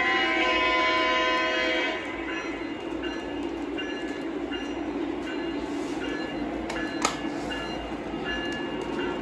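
Lionel O-gauge locomotive sound effects: a horn chord held for about two seconds, then a bell ringing steadily, about one ding every 0.7 s, over the steady rumble of the model trains running on three-rail track. A single sharp click about seven seconds in.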